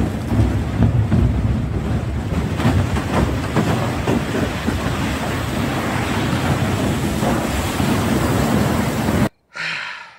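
A torrent of water rushing and splashing down a rock face, with wind buffeting the microphone; it cuts off abruptly near the end.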